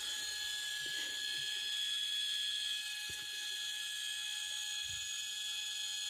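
YoLink motorized water shutoff valve controller running its heavily geared-down electric motor to slowly turn a ball valve's lever handle: a steady high motor whine, slightly louder in the first half.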